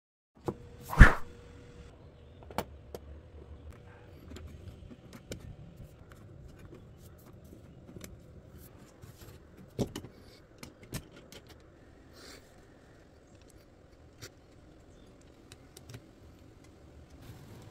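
Black acrylic panels clicking and knocking as they are handled and slotted together, with small scattered clicks throughout. A sharp knock about a second in rings briefly, and another knock comes near ten seconds.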